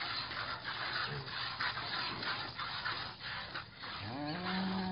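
Piglet suckling at a cow's teat: steady wet sucking and smacking with many quick clicks. About four seconds in, a single low drawn-out call rises and then falls in pitch, lasting just over a second.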